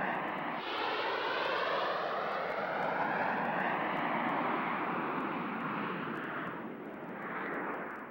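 Canadair CT-114 Tutor jets' turbojet engines passing overhead: a steady jet rush with a slowly sweeping, phasing tone, easing off near the end.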